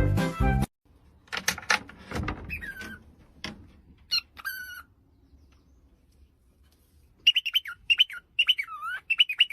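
A bird calling in rapid chirps and short whistles that slide up and down in pitch, most densely near the end, after a few knocks and a single call earlier on.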